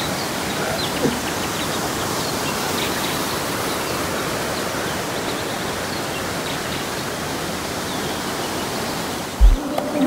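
Steady rushing of a waterfall pouring over rock into a pool. A single deep thump comes near the end.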